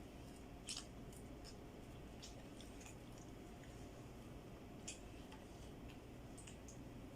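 Faint eating sounds: soft squishes and scattered small clicks over a low steady hum, with two slightly louder clicks, one near the start and one about two-thirds of the way through.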